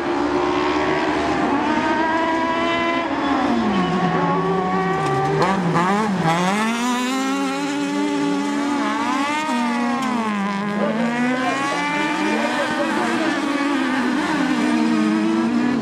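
Engines of several autocross buggies of the 1600 cc class racing on a dirt circuit. Their pitch climbs and drops again and again as they accelerate, shift and lift off for corners, and several engines overlap at once.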